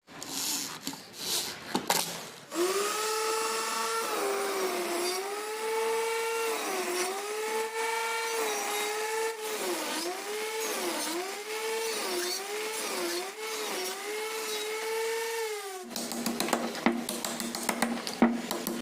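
A power tool's electric motor running in woodwork, its whine dipping in pitch again and again as it is loaded. Clicks and knocks come before it starts and again after it stops, near the end.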